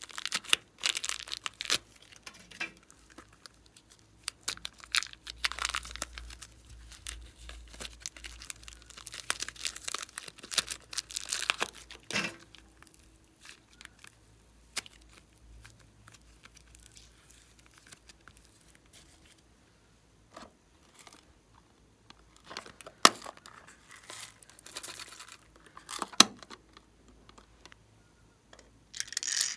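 Plastic zip bag crinkling as clay-like slime is squeezed out of it, then handled and kneaded. The crackling comes in irregular bursts that thin out after about halfway, with a few sharp clicks later on.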